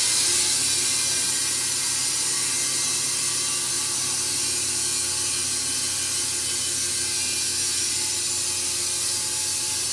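Wood-Mizer industrial band sawmill running, a steady hiss with several constant tones under it.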